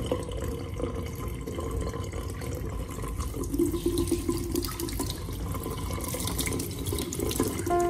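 Kitchen faucet running, its stream splashing over a small cast cement pot held under it and into a stainless steel sink as the pot is rinsed.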